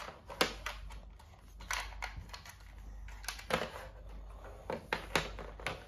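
Irregular light clicks and knocks of plastic toy dinosaur parts being handled and set down on a table.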